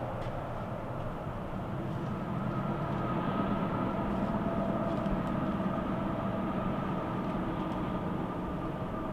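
Distant vehicle noise: a steady low rumble with a faint whine that swells slightly in the middle and eases off.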